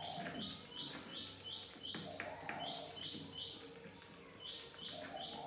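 A bird chirping in quick, evenly spaced runs of short high calls, about three a second, in three bursts of three to five chirps.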